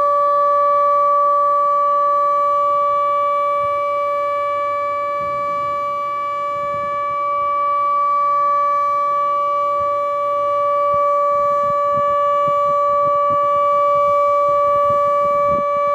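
ATI HPSS-16R electronic warning siren sounding its steady alert tone, one unwavering pitch that swells and fades slightly in loudness and cuts off at the very end.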